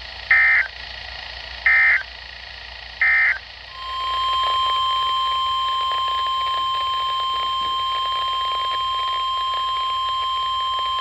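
Three short bursts of warbling SAME digital data tones from a NOAA Weather Radio broadcast, followed about four seconds in by the steady single-pitched 1050 Hz warning alarm tone that introduces the next severe thunderstorm warning, over light radio hiss.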